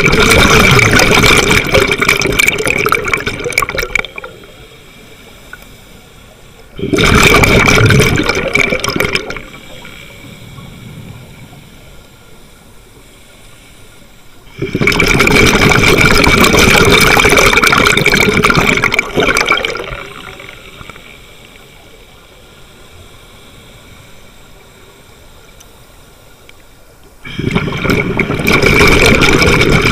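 Scuba regulator exhaust bubbles, picked up by a camera mask on the diver's own face: loud gushing bubbling in four spells of a few seconds each as the diver breathes out, with quieter stretches between them.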